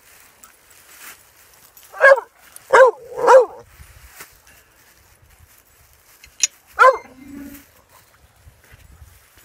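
A dog barking in short, high barks: three in quick succession about two seconds in, and one more near the end.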